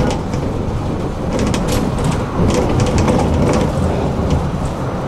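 Tram running along the rails: a steady low rumble with irregular clicks and rattles.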